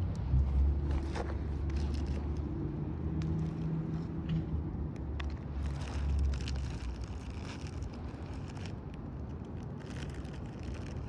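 A low, steady engine-like rumble that fades about two-thirds of the way through, with scattered small rustles and clicks on top.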